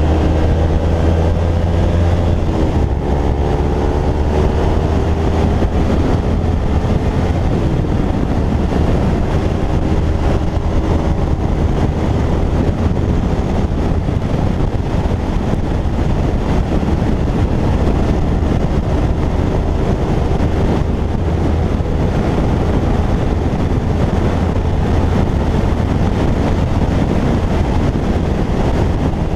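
Kawasaki Ninja 250/300 sportbike's parallel-twin engine under way on the road, heavily mixed with wind buffeting on the camera microphone. The engine pitch rises and falls in the first several seconds, then wind and road noise dominate as a steady roar.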